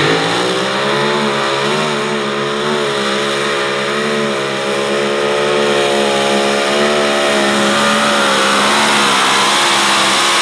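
Mini modified pulling tractor's engine running hard at high revs under load, its pitch wavering up and down as the tractor pulls down the track.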